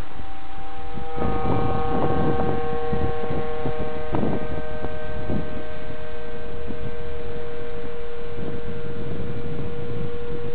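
Model autogyro's motor and propeller running steadily in flight, a constant high-pitched hum with overtones that strengthens about a second in, with wind rumble on the microphone.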